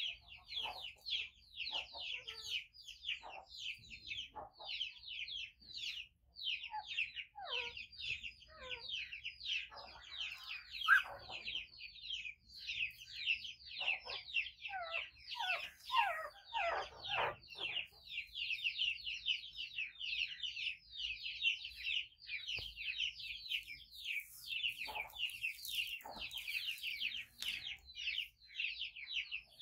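Small animals' rapid high-pitched chirping, short downward-sliding calls about five a second without a break. Now and then lower whining calls come in, most of them near the middle.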